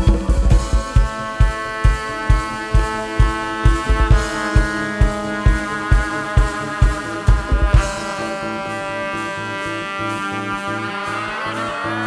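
Live band jamming an instrumental groove: a steady four-on-the-floor kick drum at about two beats a second under held chords. About eight seconds in the kick drops out, leaving the sustained chords, and a rising sweep begins near the end.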